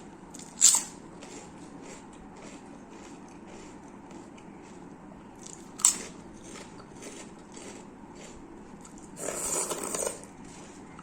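Close-miked eating: steady chewing with small wet mouth clicks, two sharp crunches, one under a second in and one about halfway, and a denser crunching burst near the end.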